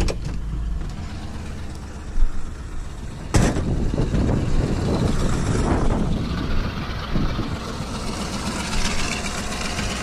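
Pickup truck engine running at idle, with a single sharp bang about three and a half seconds in.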